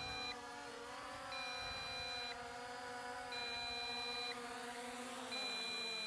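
MJX Bugs 5W quadcopter's brushless motors humming steadily, then winding down in pitch near the end as the drone auto-lands. Over it a two-tone warning beep sounds for about a second every two seconds: the low-battery alert at about 25% battery.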